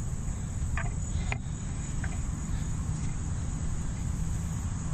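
Steady high-pitched insect trilling, with a low rumble underneath and two short chirps about a second in.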